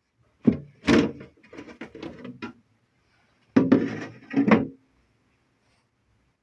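Knocks and clatters of something being handled, in two bursts with a pause between; no motor is running.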